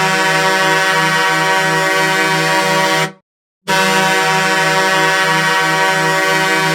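Detroit Red Wings goal horn at Joe Louis Arena sounding loudly in long, deep, many-toned blasts. One blast cuts off about three seconds in, and after a half-second break a second blast starts and carries on.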